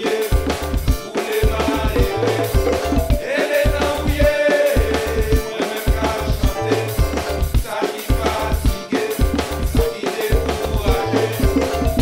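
Background music: a song with a singing voice over a steady, rhythmic bass beat.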